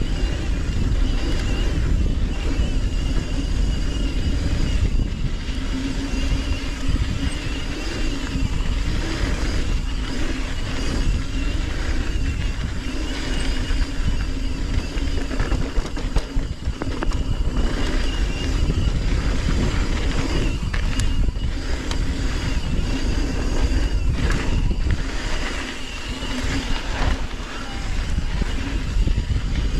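Mountain bike ride over a dirt trail: a steady rumble of tyres and wind, broken by frequent short knocks and rattles from the bumps.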